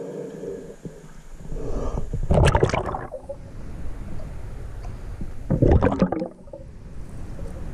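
Water gurgling and sloshing around a GoPro's waterproof case as it is dunked below the surface, with two loud rushing splashes about two and a half and five and a half seconds in. Between them, underwater, there is a steady, muffled low rumble.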